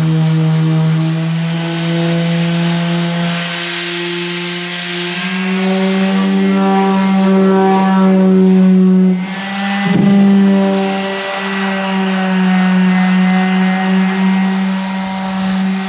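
Electric orbital sheet sander running steadily as it sands varnish and epoxy residue off the top edge of a wooden canoe hull. Its motor hum steps up slightly in pitch about five seconds in, and it briefly dips with a knock about ten seconds in.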